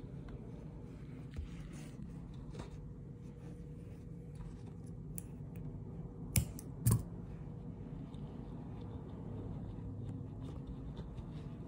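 Scissors snipping wool yarn during hand repair of a worn rug pile: a sharp snip, then another about half a second later. Faint light ticks and rustles of needle and yarn working into the rug, over a low steady hum.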